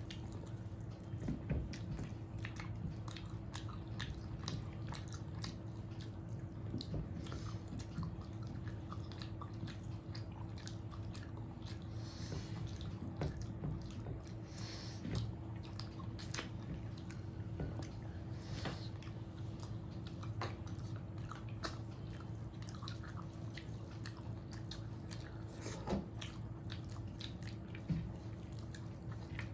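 Close-up eating sounds of a person chewing and biting a meal of rice and mutton curry: wet mouth sounds and small irregular clicks throughout. A steady low hum runs underneath.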